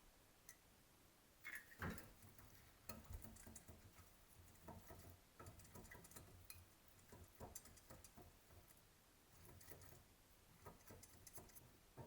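Faint, scattered light taps and clicks of small objects being handled, with a slightly louder knock about two seconds in.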